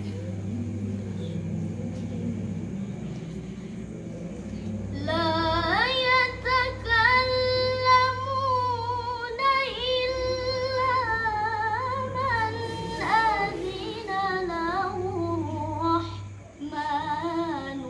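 A girl's solo voice chanting Quran recitation in the Nahawand melodic mode, with long held notes and wavering ornamented turns. It begins about five seconds in, over a low steady hum.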